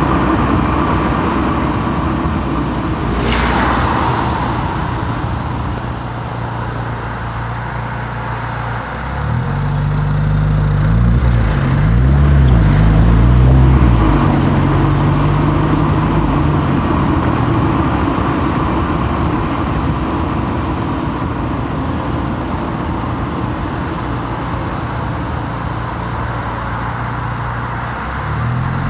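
Car driving, heard from a microphone mounted on the outside of the car body: engine running under steady road and tyre noise. About nine seconds in the engine pitch rises and falls several times as the car accelerates through the gears, and a brief sharp sound comes about three seconds in.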